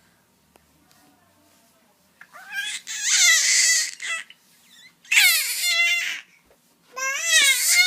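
A baby crying in three loud, high-pitched bouts, the first about two seconds in and the last still going at the end.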